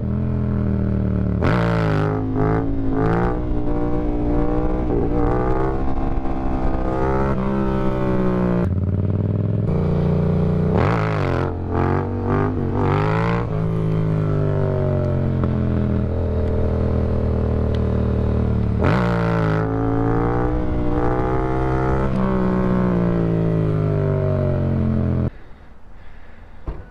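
Motorcycle engine heard from on the bike, revving up and down through the gears as the rider accelerates and rolls off, with a couple of sharp climbs in pitch. Near the end the engine sound cuts off abruptly.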